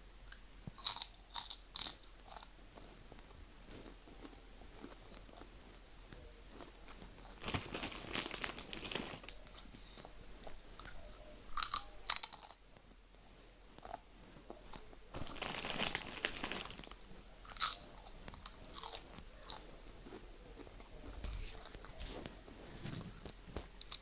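Crunchy food being bitten and chewed: a quick run of sharp crunches about a second in, then two spells of steady chewing lasting a couple of seconds each, with single loud crunches between and after them, and fainter chewing near the end.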